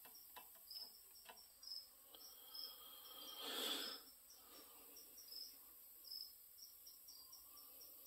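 Near silence: a cricket chirps faintly over and over. There are a few light clicks in the first couple of seconds, and a short scrape about three and a half seconds in.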